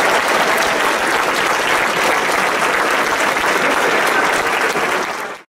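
Audience applauding steadily, the clapping cut off abruptly near the end.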